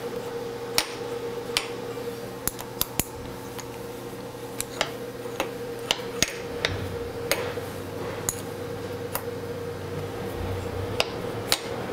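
A dozen or so sharp, irregular metal clinks as hand tools and a steel workpiece are handled at a drill press vise, over a steady machine hum. A lower hum joins about halfway through.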